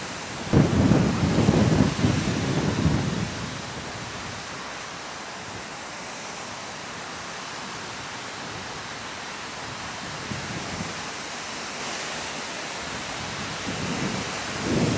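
Wind buffeting the microphone in stormy weather: heavy low rumbling gusts for the first few seconds, then a steady windy hiss.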